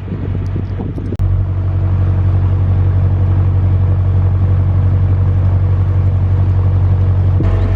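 Narrowboat engine running steadily under way: a low, even drone that steps up in loudness about a second in.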